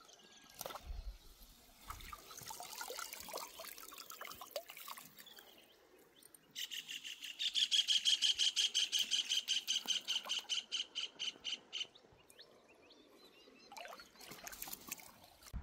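Birds calling. The loudest is a rapid, evenly repeated call of about six notes a second that runs for some five seconds, starting about six seconds in, with fainter calls before it.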